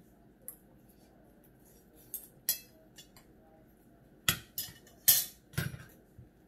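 Metal cutlery clicking and scraping against a dinner plate during a meal: scattered sharp clinks, then a denser, louder run of them about four to six seconds in, some with a brief ring.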